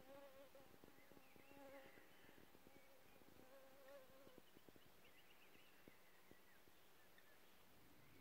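Faint wavering buzz of a flying insect for the first four seconds or so, then near silence with a few faint high chirps.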